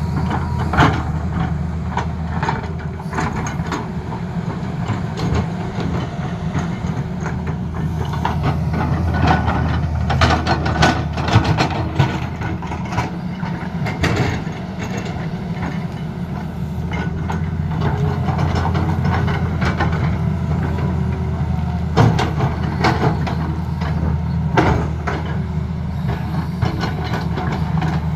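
Tata Hitachi excavator's diesel engine running steadily under load, with irregular metallic clanks and knocks from the machine at work.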